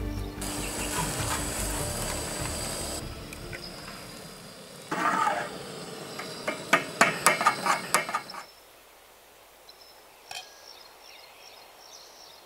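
Background music fades out over the first few seconds. Then metal kitchen utensils clink and scrape in a quick run of sharp clicks for about three seconds, followed by quiet with a few faint clicks.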